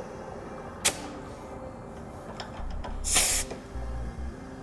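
Compressed air hissing in short bursts as an air chuck is pressed onto the bumper-mounted inflation valve to fill Firestone coil-to-air-spring conversion air bags: a brief hiss about a second in and a longer one of about half a second around three seconds in.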